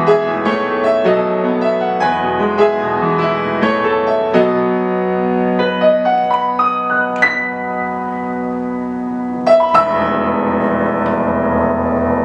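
Solo piano music: a melody of single struck notes over held low notes and a short rising run. It ends on a final chord struck about nine and a half seconds in and left to ring.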